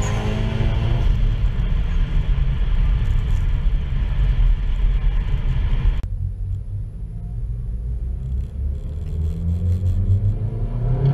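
Mitsubishi Lancer Evolution IX's turbocharged 2.0-litre four-cylinder engine heard from inside the cabin under way, a low rumble with revs rising in the first second and again near the end. About halfway the sound changes abruptly and the higher sounds fall away, leaving mostly the low rumble.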